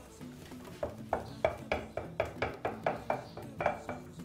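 Spoon patting and beating soft, freshly cooked polenta on a ceramic plate to mould it, a quick run of soft taps about three or four a second that starts about a second in.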